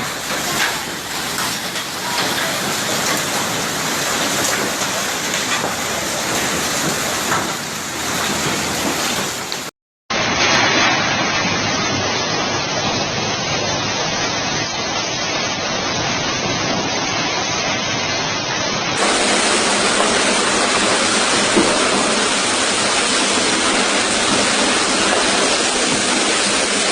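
Heavy storm downpour of hail and rain pelting down as a dense, steady hiss, broken by a momentary dropout about ten seconds in.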